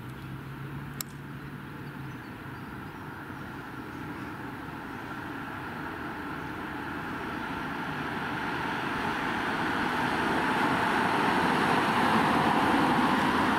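A vehicle approaching: a steady rushing noise that grows steadily louder over about ten seconds.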